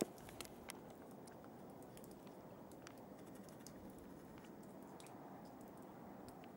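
Near silence: faint, even background noise with a few soft, scattered clicks.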